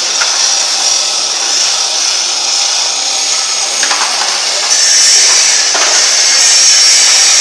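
Hydraulic power unit of a vertical PET bottle baling press running, its electric motor and pump giving a steady high-pitched hiss that grows louder about five seconds in.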